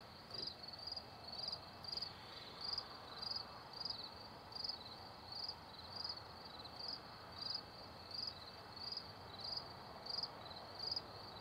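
Crickets chirping steadily, short high-pitched chirps repeating a little under two times a second.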